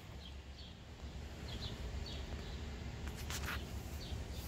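Ford 6.7 L Power Stroke V8 turbodiesel idling, heard as a low, steady rumble from inside the cab. Faint high chirps come and go over it, and there is a brief scratchy rustle about three seconds in.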